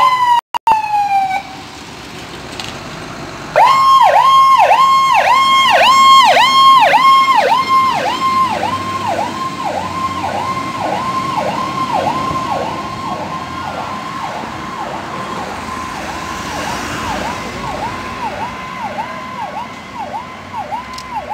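Fire engine's siren. After a short falling tone near the start, it breaks into a fast rising-and-falling yelp, about two sweeps a second, a few seconds in. The siren is loudest at first and fades slowly as the engine drives away on an emergency call.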